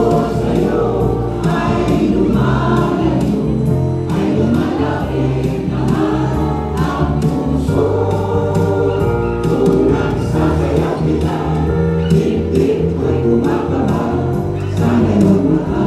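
Mixed choir of women's and men's voices singing together, accompanied by strummed ukuleles.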